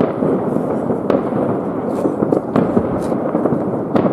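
Many fireworks and firecrackers going off at once across a city, a dense, continuous crackling din with several sharper bangs standing out.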